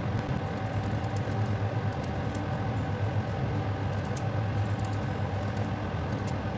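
Paring knife slicing the peel off a raw turnip: faint, crisp, irregular clicks over a steady low mechanical hum.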